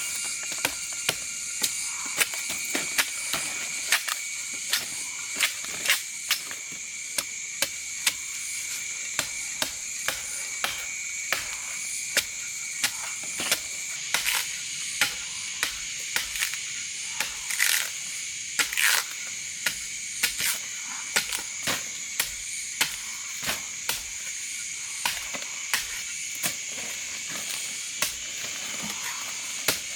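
A steady high-pitched drone of forest insects, with sharp knocks repeating irregularly about once or twice a second.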